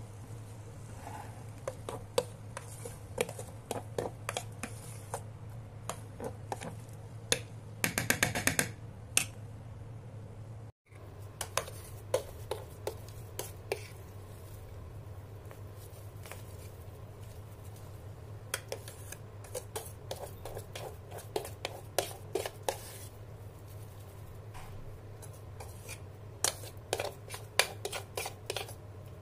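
A metal spoon scraping and clinking against a stainless steel cooking pot and a steel plate: thick upma, stuck to the pot's base, is scraped loose and spooned out. The strokes come as irregular clicks and scrapes, busiest near the middle and near the end, over a steady low hum.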